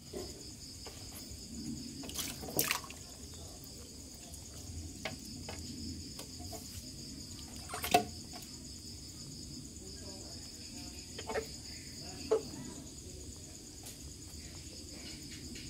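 Shallow water sloshing and splashing in a plastic tub as hands grab and lift large frogs, with a few sharp knocks and splashes, the loudest about 8 seconds in. A steady high insect trill runs underneath.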